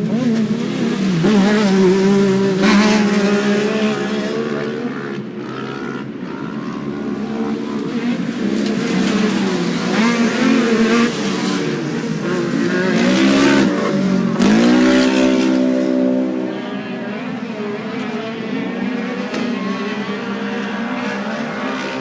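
Engines of several non-turbo off-road race vehicles revving hard and shifting, their pitches rising and falling over one another. About fourteen seconds in, one engine climbs sharply in pitch and then holds steady for a couple of seconds.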